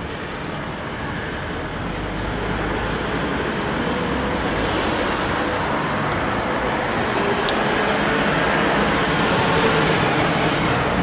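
Traffic noise: a steady rushing of passing vehicles that slowly builds in loudness, loudest near the end.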